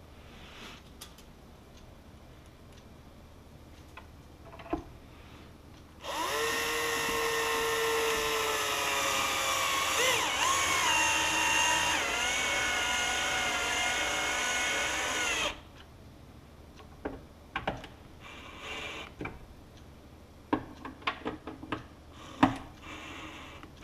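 Cordless drill-driver driving screws to fasten a speaker into its enclosure. It starts about six seconds in and runs for about nine seconds, its whine wavering and dropping in pitch a couple of times. Small clicks and knocks of handling come before and after.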